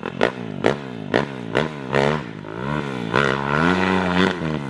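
Kawasaki KX450X dirt bike's single-cylinder four-stroke engine, fitted with an FMF 4.1 RCT slip-on exhaust. It is revved in quick throttle blips about half a second apart. Then it is held on the throttle, its pitch rising and falling.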